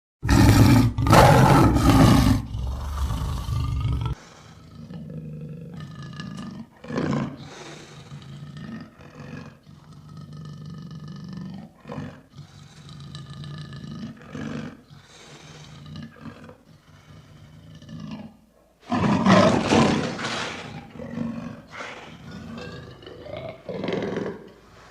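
Lion roaring: one loud roar over the first four seconds, then a run of quieter, shorter calls, and a second loud roar about nineteen seconds in, followed by more short calls.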